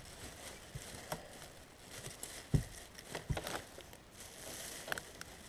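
Faint irregular taps and knocks, about half a dozen, over a low steady hiss.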